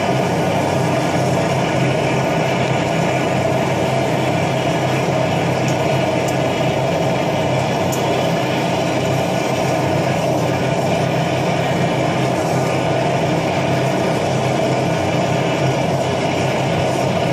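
Torch flame running steadily as it melts silver in the crucible of a centrifugal casting machine, an unbroken roar with a steady hum under it.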